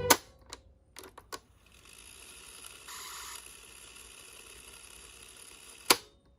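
Sony TC-122 portable cassette recorder's mechanical keys clicking: a loud clunk as the music stops, a few lighter clicks, then a steady hiss of running tape for about four seconds, ended by another loud clunk.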